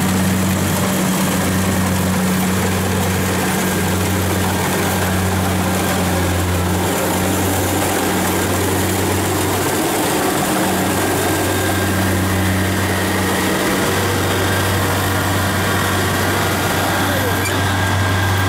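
Kubota DC70 combine harvester's diesel engine running steadily with a low hum as the machine cuts and threshes rice, the hum swelling and dipping slightly every few seconds.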